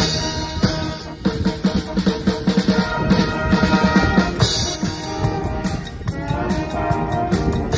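High school wind band playing a lively piece: trumpets, saxophones and French horns over drums keeping a steady, quick beat.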